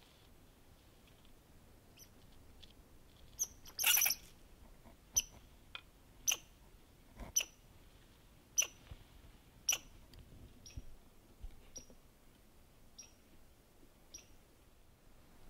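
American red squirrel calling: a series of short, sharp, high chirps about a second apart, with a brief dense burst of chatter about four seconds in, the loudest part, then fainter chirps toward the end.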